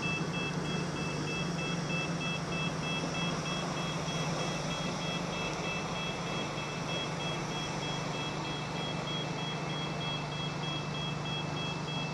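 Electronic warning beeper sounding a steady run of evenly repeated high two-tone beeps, of the kind fitted to reversing vehicles, over a steady low engine hum.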